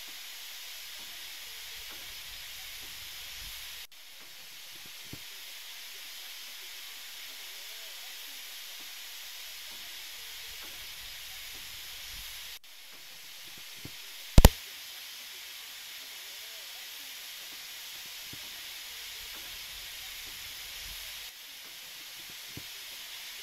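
Steam traction engine hissing steadily with steam, with a few faint knocks. A single very loud, sharp click comes a little past halfway.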